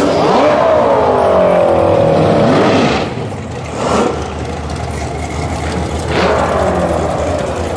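Drag racing car engines running, their note falling away twice, with a few sharp knocks.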